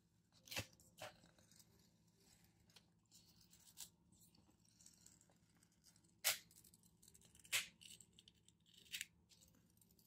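Paper and sticker sheets being handled: about half a dozen brief crinkles and snaps, a second or more apart, over a faint steady hum.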